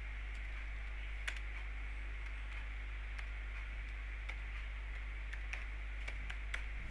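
Slow, irregular keystrokes on a computer keyboard, about one a second, as a short command is typed. A steady low hum and faint hiss run underneath.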